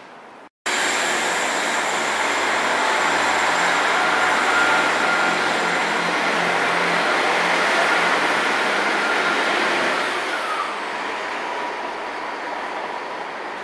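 East Midlands Trains Class 158 diesel multiple unit running alongside the platform: a loud, steady rush of train noise that starts abruptly after a short cut about half a second in and eases off after about ten seconds.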